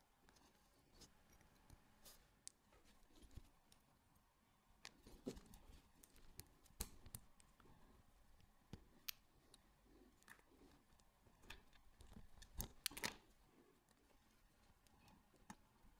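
Faint small metallic clicks and taps from a watch bracelet and a fine pin-pushing tool as the bracelet is worked off the watch case, with a quick run of sharper clicks near the end.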